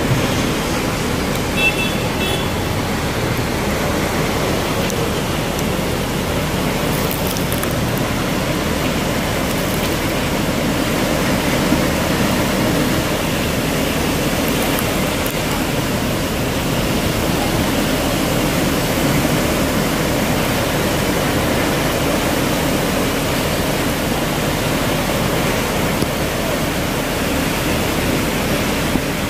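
Heavy storm rain pouring down in wind, a steady rushing hiss.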